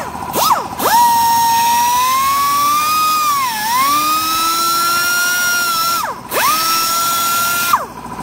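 High-speed rotary tool whining as it cuts a groove into a cracked plastic motorcycle side cover to prepare it for plastic welding. After a few short spin-ups, it runs steadily with its pitch dipping briefly as the bit bites in. It stops about six seconds in, then runs again briefly before cutting off near the end.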